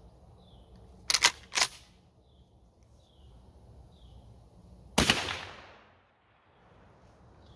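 Pump action of a Rock Island Armory AG12 12-gauge shotgun racked about a second in, two sharp clacks half a second apart. About four seconds later comes a single shot of 00 buckshot, a sharp report with a short echoing tail.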